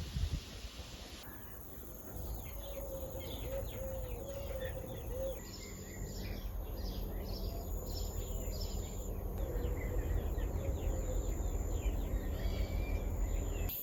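Small birds chirping in quick repeated calls, with a lower wavering call twice, over a steady low background rumble.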